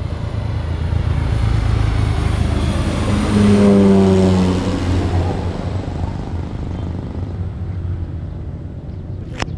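Small propeller plane passing low overhead on its landing approach: the engine and propeller drone grows to its loudest about four seconds in, drops in pitch as the plane goes by, then eases off.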